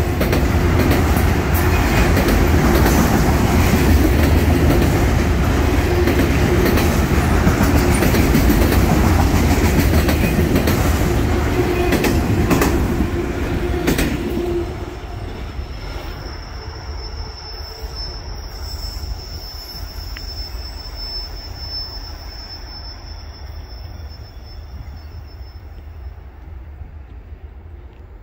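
Freight train of autorack cars rolling past close by: wheels rumbling on the rails, with a steady mid-pitched tone and a few clacks. About fourteen seconds in the sound drops off as the train pulls away, and a thin high wheel squeal holds steady for about ten seconds while it fades.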